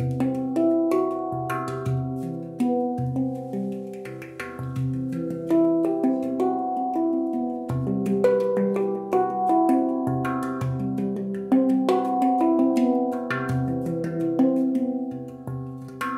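Handpan tuned to C Aegean (ding C with E, G, B, C, E, F#, G, B) played with the fingers: a steady stream of struck, ringing steel notes that overlap one another, with the low central ding sounding about every second or so.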